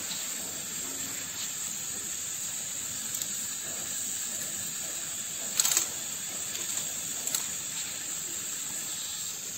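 Gas-oxygen burner flames of an ampoule sealing machine, preheat and drawing burners, hissing steadily as jets tuned to burn with force. A few sharp clicks break through, the loudest a little past halfway.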